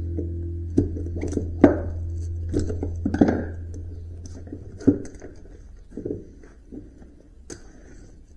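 Scattered clicks and knocks of metal being handled as copper winding is stripped from a cut electric motor stator. They sound over a low steady hum that stops about five seconds in.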